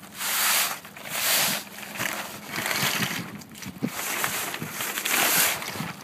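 Sabot sail cloth rustling in repeated swells, about one a second, as the mast is pushed up into the sail's luff sleeve.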